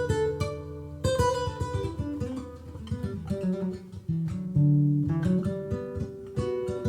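Breedlove Discovery concert acoustic guitar with hard-tension strings, played through its pickup preamp with the phase control switched off: picked notes and chords ringing and fading, with new strummed attacks about a second in, past the middle and near the end.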